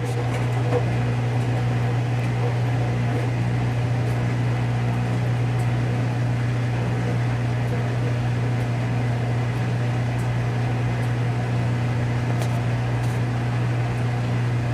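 Whirlpool Duet Sport front-load washing machine running with a steady hum as it drains before the spin.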